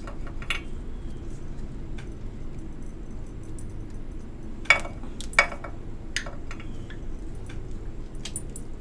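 Several sharp clicks and clinks of a motorcycle wiring connector and its wire terminals being worked by hand, the loudest about halfway through, over a steady low background hum.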